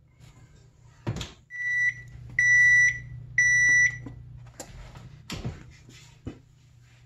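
Three long electronic beeps from the powder-coating oven's control, each about half a second, over a low steady hum, with sharp metal clanks of the oven door and rack before and after.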